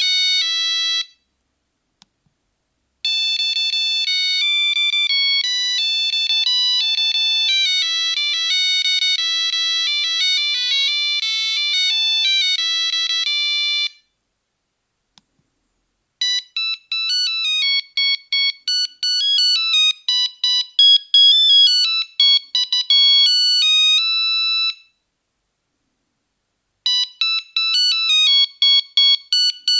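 Nokia 3310 mobile phone playing its monophonic ringtones one after another: high, beeping one-note-at-a-time melodies. A tune ends about a second in, a long one plays for about eleven seconds, then a choppier tune of short notes, and another begins near the end, with short pauses between them.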